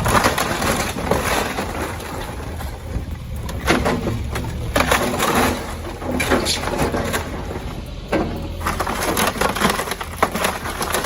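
Building demolition: repeated cracking and crunching of breaking structure and debris over a low rumble.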